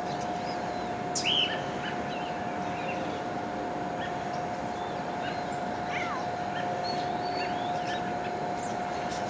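Outdoor birds chirping on and off, with a sharper call about a second in, over a steady hum and background hiss.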